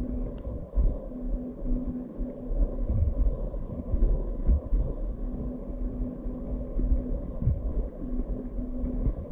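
Low, uneven rumble of wind and handling noise on a GoPro HERO6 Black's built-in microphone, with a faint steady hum from the FeiyuTech G6 gimbal's motors that comes and goes in stretches of a second or two.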